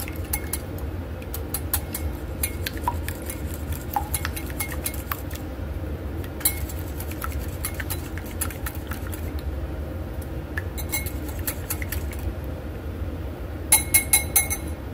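Wire balloon whisk beating eggs in a ceramic bowl: a fast, uneven run of clinks as the wires strike the bowl's sides. Near the end, four louder clinks come in quick succession.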